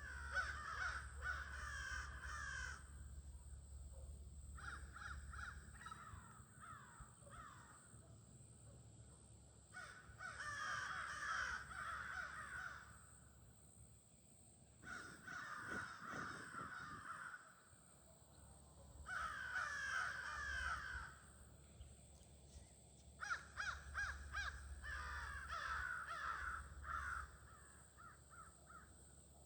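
A flock of crows cawing at their evening gathering: about six bouts of many overlapping caws, each lasting two to three seconds, separated by short lulls.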